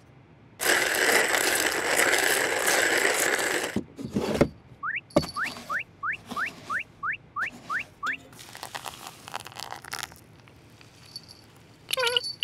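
Coffee beans pouring into a hand-cranked coffee grinder, a steady rattling hiss for about three seconds, then a knock. The grinder's crank is turned with about ten quick rising squeaks, followed by a shorter rustling hiss.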